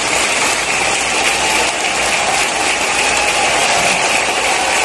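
A large stadium crowd cheering and applauding, a loud steady roar of many voices and clapping.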